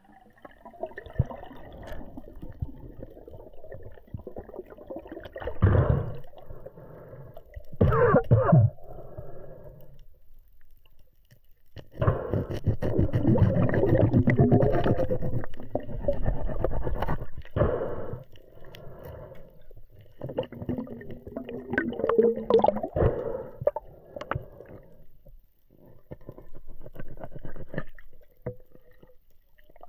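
Muffled underwater noise picked up by a mask-mounted camera: irregular gurgling and knocking as a speared fish is handled on the spear shaft, with a longer, louder spell of churning water about halfway through.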